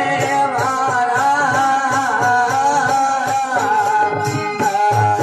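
Marwari folk bhajan ensemble playing: harmonium melody and a strummed Marwari veena over a steady dholak beat.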